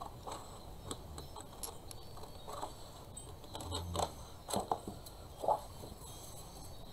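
Scissors snipping through a sheet of double-sided patterned paper: a series of short, irregular cuts, with the paper rustling as it is turned.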